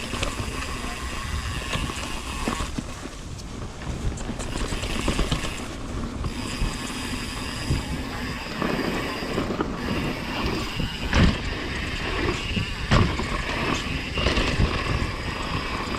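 Mountain bike riding down a dirt trail: a steady rumble of wind on the microphone, tyres on dirt and the bike rattling, with a couple of sharper knocks from bumps about eleven and thirteen seconds in.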